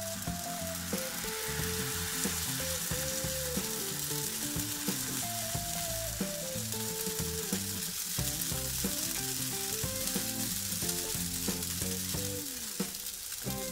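Crepe batter sizzling steadily in a hot, lightly buttered nonstick pan while a plastic crepe spreader is dragged around it to spread it thin.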